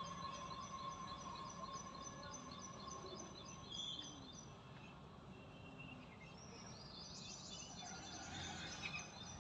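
Birds chirping faintly: a quick run of short, repeated high notes, about four a second, over the first four seconds, then a denser burst of chirping near the end, over a low steady background hum of outdoor noise.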